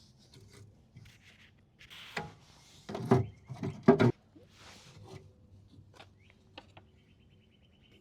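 Rubbing and handling noises, with a cluster of loud knocks about three to four seconds in, a few sharp clicks after, and a quick run of light ticks near the end.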